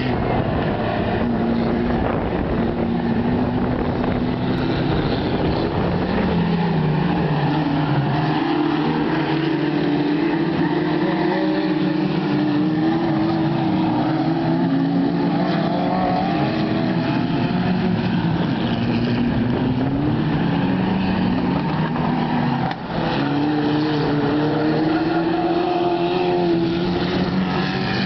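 Several Chevrolet Chevette race cars' four-cylinder engines running hard in a pack, their notes rising and falling in pitch through the gears as the cars go by.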